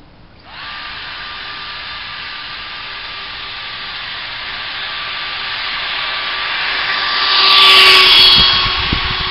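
Electric ducted fan driven by a 500 W brushless motor on a radio-controlled car, spooling up with a rising whine about half a second in, then running steadily at high pitch. It grows louder as the car speeds along the road and is loudest as it passes close by about eight seconds in.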